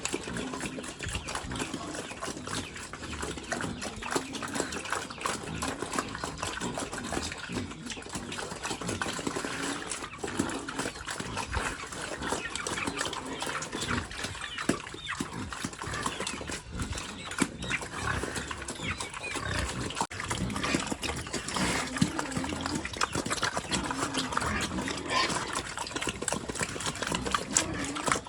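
Pigs eating wet feed of rice and vegetables, a steady busy mix of many small chomping, smacking and slurping sounds.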